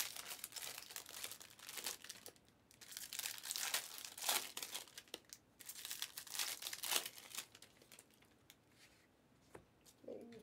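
Trading cards being handled on a table: crinkling and rustling in irregular bursts for about seven seconds, then mostly quiet with a few faint clicks near the end.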